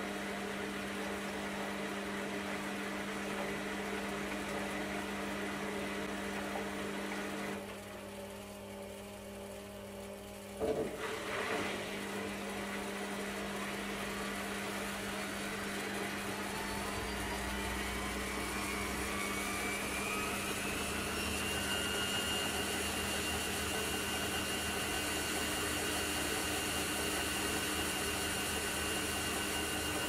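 Aldi front-load washing machine in its spin stage: a steady hum drops away about a quarter of the way in, a short knock follows, then the motor's whine rises steadily in pitch as the drum speeds up toward high-speed spin and holds level for the last third.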